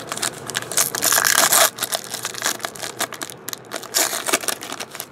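Trading card pack wrapper being crinkled and torn open by hand, in irregular crackling bursts, loudest about a second in and again near the end.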